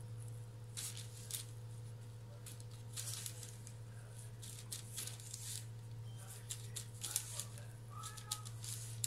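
Soft, irregular rustling and scratching of baking paper and fingers on dough as the edge of a rolled dough round is pinched and crimped shut, over a steady low hum.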